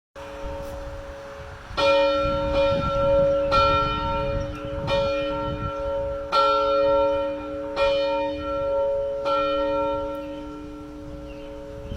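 A single church bell being rung. It is struck about six times, beginning about two seconds in, roughly once every second and a half. Its hum rings on between strokes and dies away slowly after the last one.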